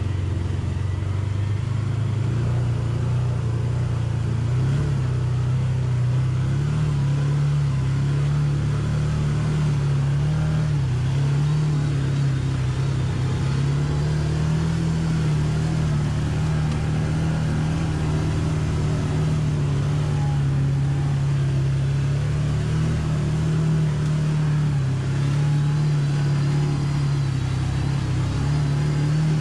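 Can-Am Commander side-by-side's engine running steadily under load, its pitch wavering gently as the machine pushes through deep muddy water. A faint high whine rises near the end.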